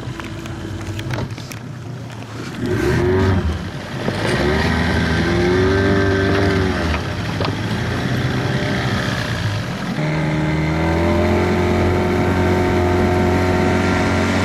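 Small boat's outboard motor revving up and down a few times, starting about two and a half seconds in, then running at a steady pitch as the boat moves off.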